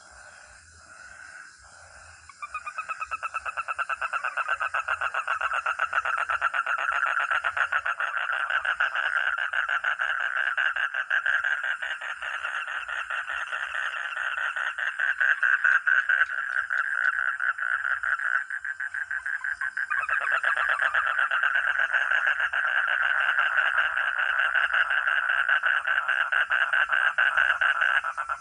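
A frog or toad calling: a few short notes, then about two seconds in a long, fast, rattling trill. The trill runs on, breaks off briefly about two-thirds through, and starts again.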